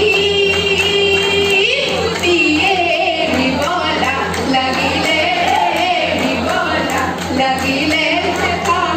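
Women singing a Jeng Bihu folk song through microphones and a PA in a large hall, with a wavering melody of held and bending notes, and hand clapping keeping the beat.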